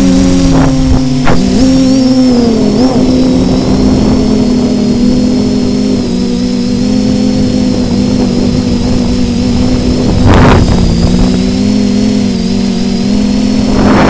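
Quadcopter's electric motors and propellers whining steadily, picked up by the camera on board. The pitch dips and recovers a few times in the first three seconds as the motor speeds change. Two gusts of wind hit the microphone, about ten seconds in and at the end.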